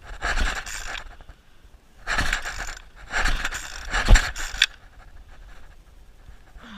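Petrol string trimmer's recoil starter cord yanked three times in quick succession, the engine cranking but not catching: the trimmer won't start.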